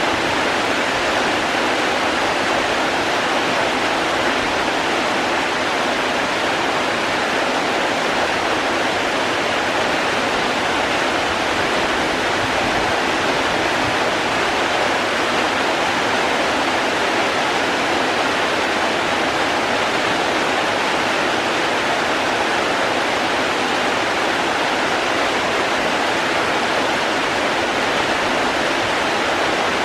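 Steady rain falling, an even rushing hiss with no breaks or changes.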